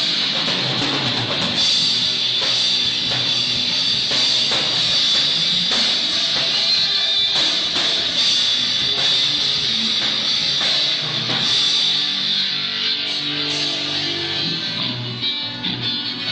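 A live band playing, with electric guitar strummed over a drum kit, loud and steady throughout.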